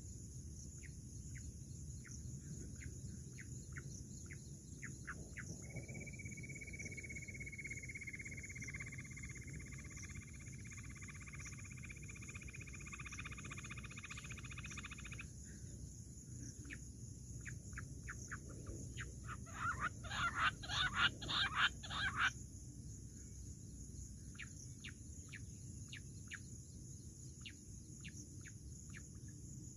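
Bird calls over a steady high insect hiss: short chip notes repeat about twice a second, a steady high note holds for about nine seconds, and about two-thirds of the way through a loud run of about nine quick calls, typical of jungle bush quail, lasts some three seconds.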